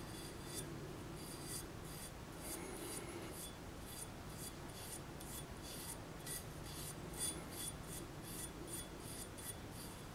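Copper pipe or fitting being scraped by hand in quick, even strokes, about two to three a second, the kind of abrading done to clean copper before soldering.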